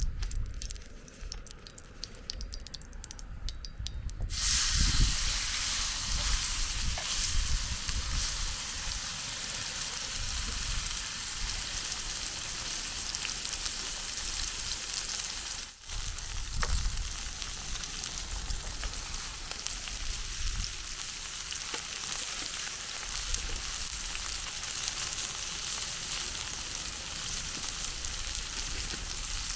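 Food frying in hot oil in a pan over a campfire: light crackling at first, then about four seconds in a loud, steady sizzle starts and keeps going, cutting out for a moment just past the middle.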